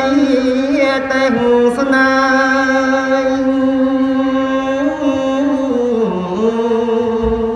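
A man's solo voice chanting Khmer smot, Buddhist verse sung without accompaniment, on long held notes with slow ornamental bends; the pitch sinks about six seconds in, rises again, and dips once more at the end.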